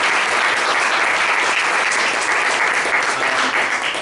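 Audience applauding: steady clapping that stops abruptly near the end.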